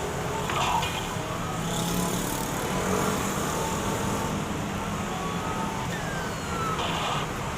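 An engine running steadily, with a brief falling whistle-like tone about six seconds in.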